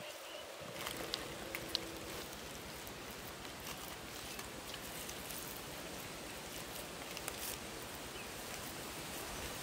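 Steady faint hiss of outdoor background noise, with a few faint, soft clicks from hands pressing minced pork into green bell pepper halves.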